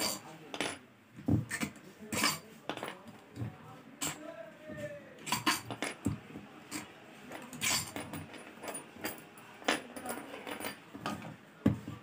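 Irregular metal clicks, clinks and taps from dismantling a table fan motor: long through-bolts being drawn out and the end cover worked off the motor housing.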